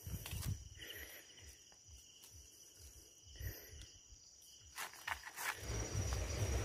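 Steady high trill of night insects, with crackly rustling of a net bag and brief clicks; about five and a half seconds in, loud rumbling, rustling handling noise as the camera is swung down into the undergrowth takes over.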